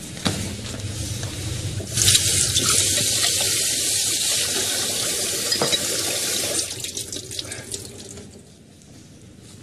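Water running from a tap: a steady rush that comes on suddenly about two seconds in and is shut off after about five seconds.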